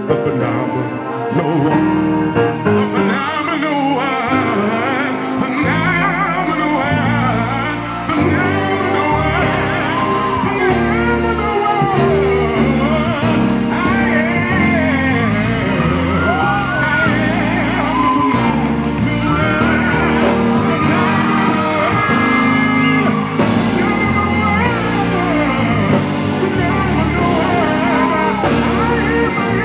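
A man sings an inspirational song with bending vocal runs into a handheld microphone over accompanying music, amplified in a large hall. A low bass line comes in about six seconds in.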